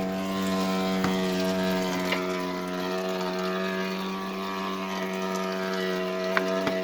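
Electrolux washing machine running with a steady pitched hum and a few faint clicks, still going after its cycle was paused and cancelled and the machine switched off.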